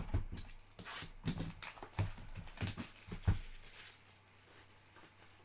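Trading-card packs and cards being handled on a table: a quick run of taps, rustles and light knocks over about three and a half seconds, then it goes quiet.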